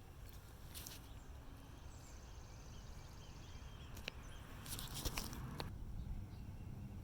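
Faint outdoor background with a few light knocks and scuffs, about a second in and again around four to six seconds in, and a faint high warbling trill between about one and a half and three and a half seconds in.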